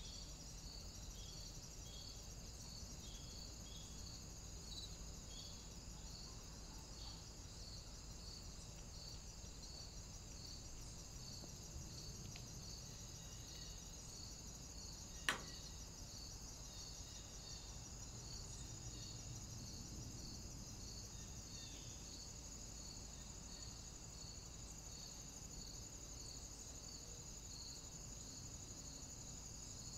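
Insects chirring steadily in a high, even drone with a regular pulsing chirp under it, over a faint hiss. A single sharp click sounds about halfway through.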